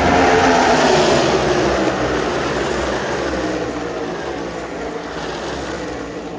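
A pack of NASCAR Cup Series V8 stock cars passes at full racing speed, the engine note dropping in pitch as they go by. The sound is loudest in the first second or so, then fades as the pack moves away.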